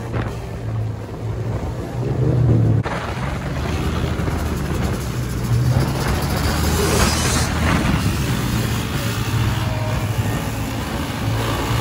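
Several motorbike and quad-bike engines running at speed together, with wind rush over them; the sound changes abruptly about three seconds in.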